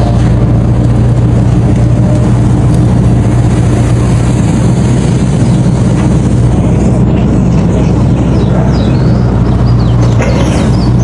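Excavator's diesel engine running steadily with a constant low hum.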